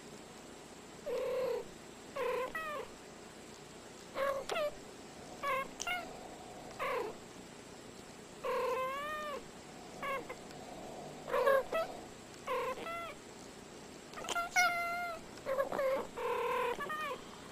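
Two house cats trading short meows and chirps back and forth, a string of brief calls that arch up and down in pitch, coming singly and in quick pairs.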